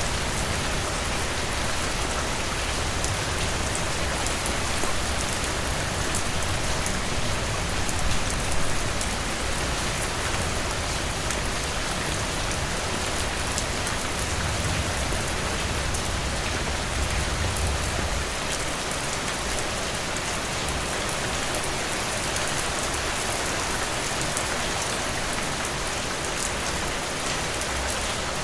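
Steady rain falling, an even hiss with scattered sharp ticks and crackles, over a low rumble that eases off about eighteen seconds in.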